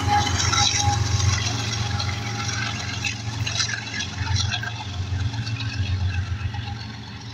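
A GE ES44AC diesel-electric locomotive of a loaded freight train runs by with a steady low engine hum. Wheels clack and squeal on the rails, most around the middle, and the sound fades as the locomotive moves away.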